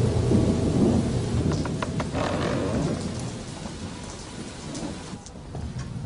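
A deep rumble with a hiss of noise, loud at first and fading over about five seconds, with a few sharp clicks about two seconds in.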